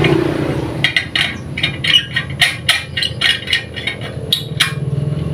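Metal clinking and knocking as the detachable steel burner pot of a homemade used-oil stove is worked in its fittings: a quick irregular run of about a dozen sharp clinks, starting about a second in.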